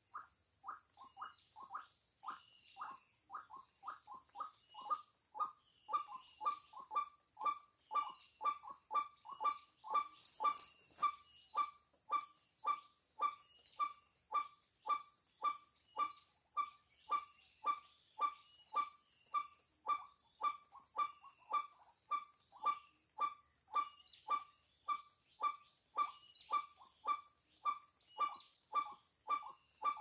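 White-breasted waterhen calling monotonously: a short falling note repeated very evenly about twice a second, with a steady high insect buzz behind it.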